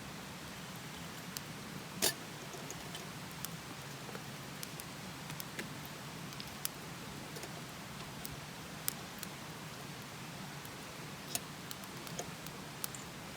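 Wood campfire burning with irregular crackles and sharp pops over a steady hiss, the loudest pop about two seconds in.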